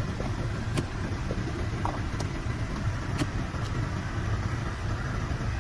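2019 Jetta GLI running with its air conditioning on, heard inside the cabin: a steady low engine hum under the even rush of air from the vents, with a few faint clicks.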